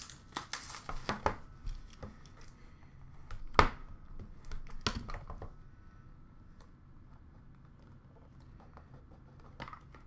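Hands handling a cardboard trading-card box: rustling and small clicks, then a sharp knock about three and a half seconds in and a smaller one about a second later, followed by faint handling sounds.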